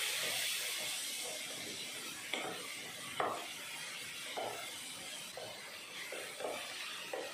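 Onion-tomato masala with spice powders sizzling in oil in a pan, frying until the raw smell of the spices goes, with a steady hiss that slowly fades. From about two seconds in, a wooden spatula scrapes and knocks against the pan in short strokes about once a second.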